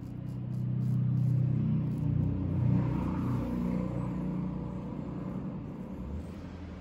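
A low engine rumble like a vehicle going by swells during the first second, then slowly fades. It sits over the faint scrape of a straight razor on lathered stubble.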